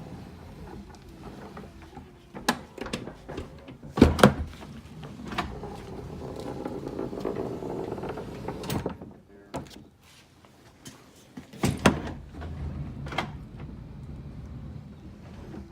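Mercedes-Benz V-Class W447 sliding door making an abnormal rattling, clattering noise: irregular knocks over a steady low rumble, the loudest about four seconds in and again near twelve seconds.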